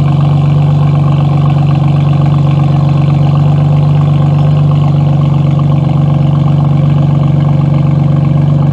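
BMW F82 M4's twin-turbo straight-six idling steadily with its exhaust valves closed.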